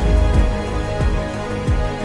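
Cinematic background music: sustained chords over several deep drum hits.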